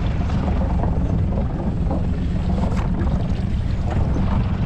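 Steady low rumble of wind buffeting the microphone on a small open boat at sea, with faint splashing as a gaffed cod is lifted out of the water.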